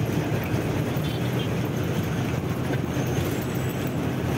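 Truck engine running steadily with road noise as the truck drives along, a constant low hum under an even rushing noise.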